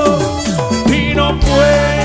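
Live tropical cumbia band playing, with electronic keyboard and electric guitar. Low notes slide downward in the first second.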